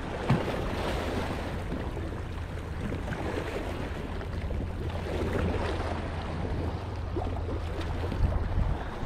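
Sea waves washing and sloshing over a sandstone rock ledge, with wind rumbling on the microphone, and a single light knock just after the start.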